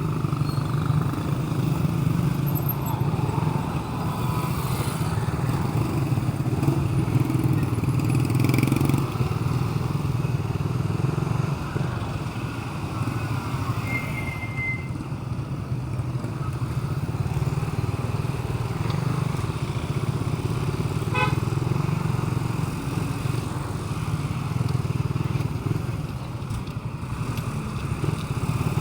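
A vehicle engine running steadily at idle, with a short high beep about halfway through.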